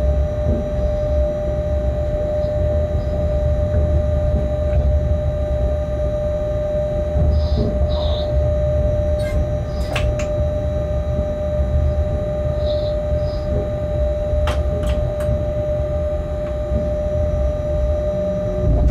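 Freight locomotive cab while running: a steady low rumble with a constant whining tone over it, and a few sharp clicks about halfway through and again twice a few seconds later.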